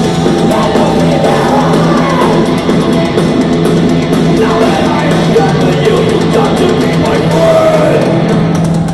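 Heavy metal band playing live, heard loud and dense from the audience: distorted guitars, bass and drums under a held low note. The music stops abruptly at the very end.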